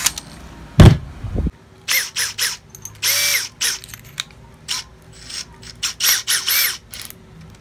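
An 18 V Makita cordless drill driver giving a series of short whirs, each spinning up and winding down, as it is blipped with the keyless chuck held to tighten it on a drill bit. There is one longer whir about three seconds in, and a single thump about a second in.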